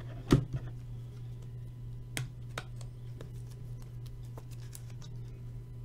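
Trading cards being handled and set down on a table: a few scattered light clicks and taps, the sharpest near the start, over a steady low hum.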